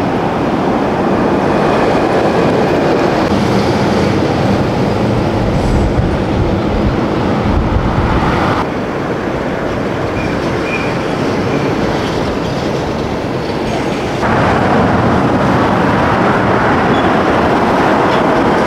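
Steady roar of passing road traffic and outdoor wind, with no clear tones or beat; the sound changes abruptly about halfway through and again a few seconds later, where the shots change.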